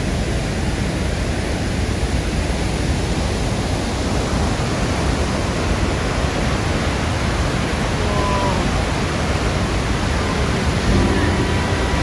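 Steady rushing of a large, heavy-flowing waterfall, a dense even noise. Music with held tones comes in near the end.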